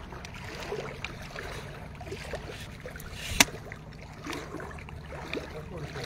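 Floodwater sloshing and splashing around people wading through knee-deep water, over a steady low hum. A single sharp knock about halfway through is the loudest sound.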